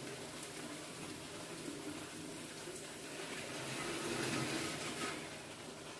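Faint sizzling of a thin egg-batter pancake frying in butter in a non-stick pan, swelling slightly about four seconds in, over a faint steady low hum.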